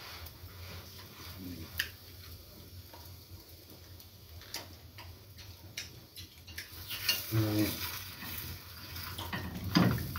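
Chapati frying on a flat pan over a gas stove, a light sizzle with the scattered clicks and taps of utensils and pans. A man makes two short low voice sounds, about seven and a half seconds in and, louder, near the end.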